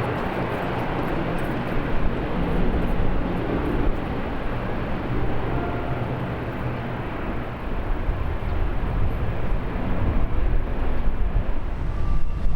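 Steady rumble and hiss of a Bombardier DHC-8-Q400 turboprop airliner on landing, mixed with strong wind on the microphone.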